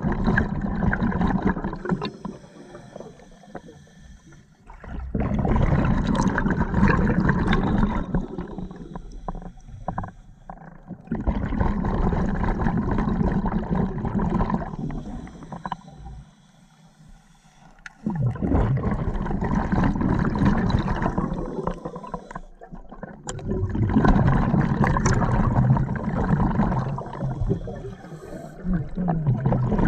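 Scuba diver breathing through an open-circuit regulator underwater: long noisy rushes of exhaled bubbles every few seconds, about five in all, alternating with quieter inhales that carry a faint hiss from the regulator.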